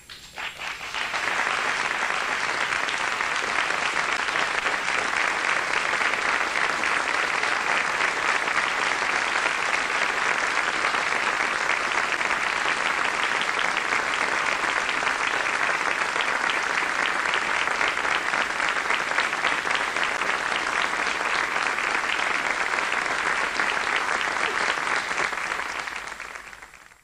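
A large audience applauding steadily. It swells up within the first second, holds for over twenty seconds, and dies away near the end.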